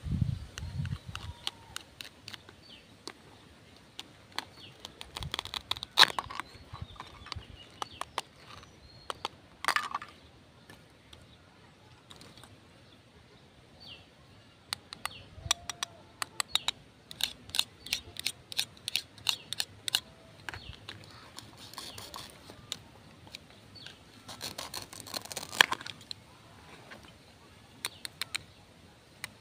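Plastic toy fruit and vegetable pieces being handled, cut apart with a plastic toy knife and set down: scattered sharp clicks and taps, with quick rattling runs of clicks as the pieces are pulled apart.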